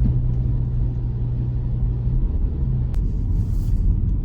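Toyota car driving, heard from the cabin: a steady low rumble of engine and tyres, with a hum that drops lower about two seconds in. There is a single click near the end.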